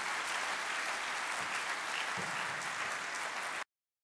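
Audience applauding, a steady dense clatter of many hands that cuts off suddenly about three and a half seconds in.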